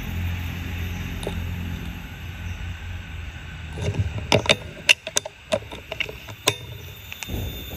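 An irregular run of about eight sharp clicks and knocks over roughly two and a half seconds, starting about four seconds in. A low steady hum runs under the first two seconds.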